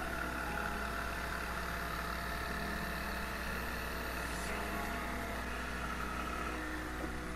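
Electric jigsaw running steadily as it cuts a curve through a thin wooden panel.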